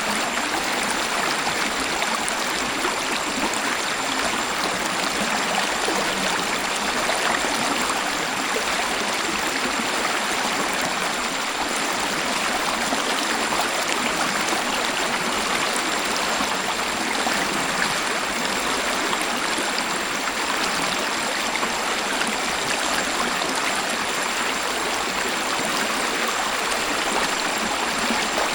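Waterfall: a steady, unbroken rush of falling and flowing water.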